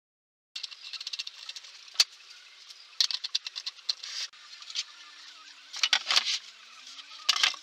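Hand work on a workbench: a rapid run of small clicks, scrapes and rattles from parts and tools being handled, starting about half a second in. A sharp click comes about two seconds in, and louder clatters follow around three, six and seven seconds.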